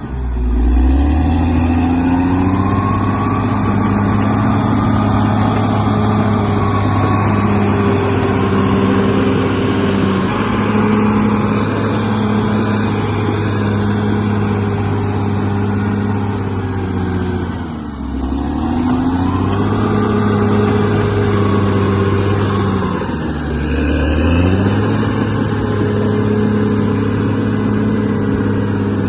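Bulldozer's diesel engine running steadily, its pitch sagging briefly and then recovering three times: right at the start, about two-thirds of the way in, and again a few seconds later.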